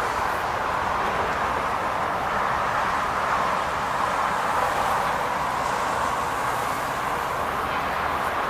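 Steady, even rushing noise of distant road traffic, holding constant throughout.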